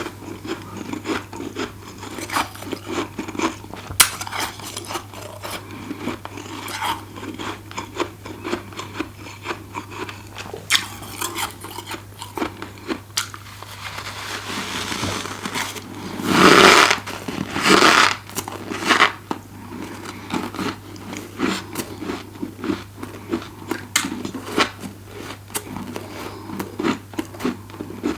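Close-miked biting and chewing of freezer frost: dense, crisp crunching and crackling, with a louder run of big crunches about two-thirds of the way through. A steady low hum runs underneath.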